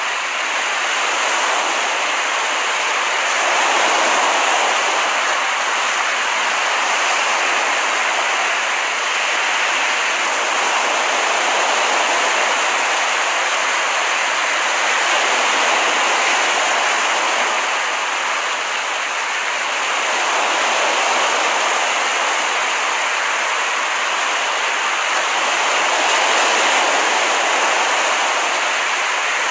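Ocean surf washing onto a beach: a steady rush of water that swells gently about every six seconds.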